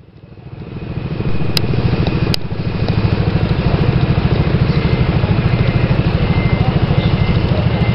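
Vehicle engine idling with a steady, fast, even throb, fading in over the first second; two brief sharp clicks sound early on top of it.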